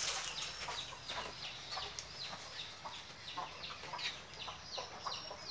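Birds chirping: a quick, uneven run of short, high notes, each falling in pitch, a few every second.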